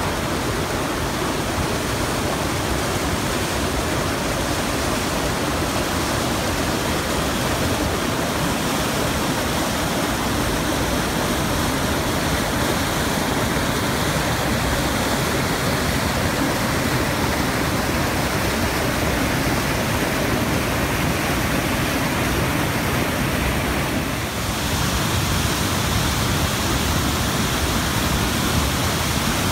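Steady rush of whitewater: a mountain creek cascading over granite boulders, then a tall waterfall, after a brief dip in the sound about twenty-four seconds in.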